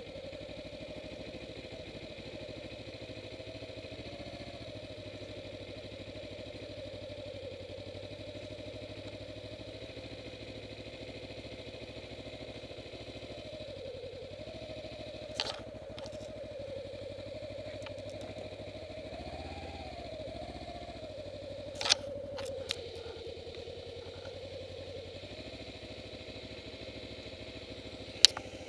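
Kawasaki Ninja 250R's parallel-twin engine running steadily, its pitch wavering and briefly rising and falling about two-thirds of the way through. A few sharp clicks cut through, the loudest near the end.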